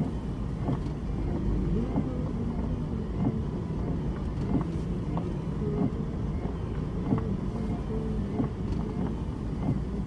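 A car driving slowly over wet tarmac, heard from inside the cabin: a steady low engine and tyre rumble with scattered faint ticks.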